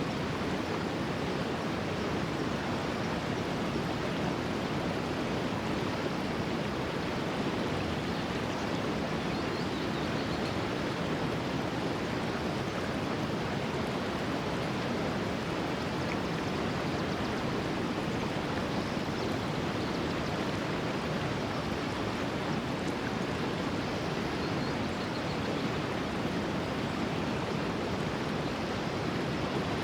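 Mountain stream rushing over rocks: a steady, unbroken wash of flowing water.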